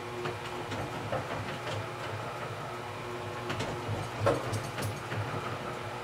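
Motor-driven honey extractor spinning frames of comb to sling the honey out: a steady motor hum with scattered light clicks and knocks.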